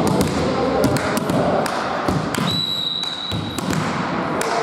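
Echoing thuds of a volleyball bouncing and striking in a sports hall, with a referee's whistle held for about a second midway, signalling the serve.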